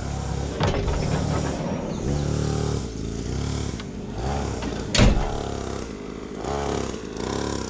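Small single-cylinder minibike engine of the lawnmower kind, revving up and down repeatedly as it is ridden. A single sharp knock about five seconds in as the pickup's camper-shell side window is pushed shut.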